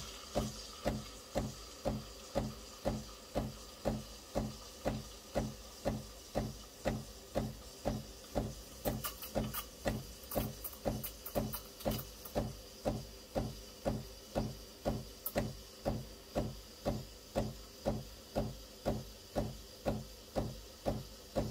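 Breville Barista Pro steaming milk: the machine's pump pulses evenly, about twice a second, over a faint steam hiss.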